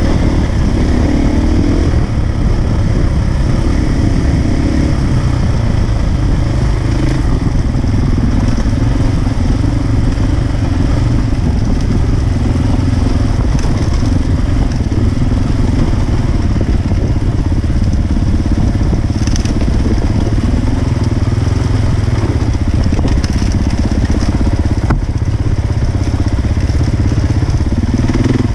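Enduro motorcycle engine running under way on a dirt trail, its note rising and falling with the throttle, over a constant low rumble of wind and vibration on the onboard microphone.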